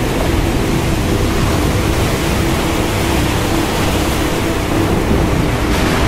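Wind and rough ocean waves making a dense, steady rushing noise, with a faint steady hum underneath.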